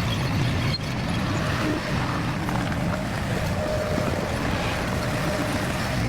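Engine of heavy construction machinery running steadily.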